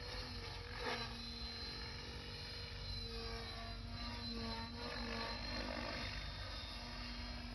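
Mikado Logo 800 Xxtreme electric RC helicopter in flight: its rotor and motor hum steadily, drifting a little up and down in pitch as it manoeuvres.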